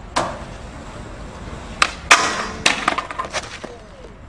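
A series of sharp knocks and clattering impacts. One knock comes just after the start, then two more about two seconds in, the second of these the loudest, followed by a quick run of smaller clatters that dies away.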